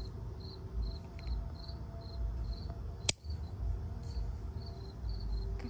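Crickets chirping in a steady rhythm, a short high chirp about every half second. About three seconds in, a single sharp snip of kitchen scissors cutting through an eggplant stem.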